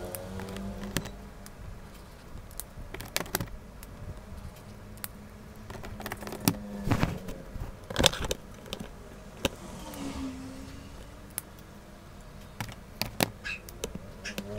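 Plastic acrylic paint markers being handled and uncapped: a string of sharp plastic clicks and clacks, the loudest about seven and eight seconds in. Near the end a marker tip is drawn across notebook paper.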